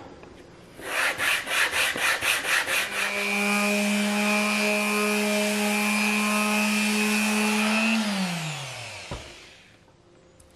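Quick rhythmic rubbing strokes for about two seconds, then an electric random orbital sander runs steadily against the hardwood cutting board's face. Near the end the sander is switched off and its motor spins down, the pitch falling away.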